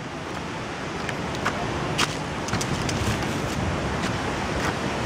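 Steady rushing wind noise on the microphone, with a few sharp crunches of footsteps on dry leaves and twigs.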